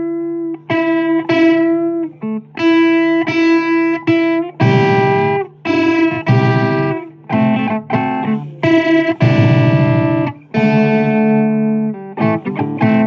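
Instrumental break in a blues song: guitar playing short phrases of held notes, with brief gaps between them.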